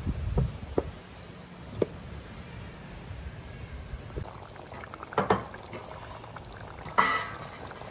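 A coconut-milk curry in a pan being stirred while it simmers: liquid sloshing, with a few light clicks near the start and two louder short scrapes or knocks about five and seven seconds in.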